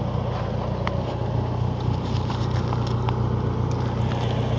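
Backhoe's diesel engine idling steadily, with a few faint clicks on top.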